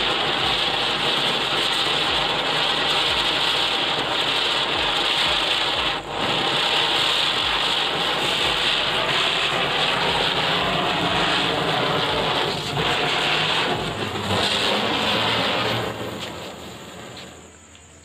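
Ground chakri (ground spinner firework) spinning on the floor, giving a loud, steady fizzing hiss as it burns. Near the end it dies away as the firework burns out.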